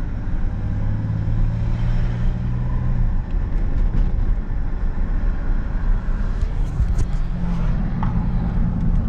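A vehicle engine running, with a steady hum over road rumble, as if driving. The engine hum drops away about three seconds in and comes back strongly near the end.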